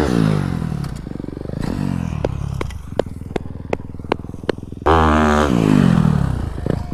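Dirt bike engine: its pitch falls away at the start, it rises and falls briefly around two seconds in, then a loud burst of throttle about five seconds in falls in pitch as the bike leaves the ledge and is in the air. Sharp clicks sound in the quieter middle stretch.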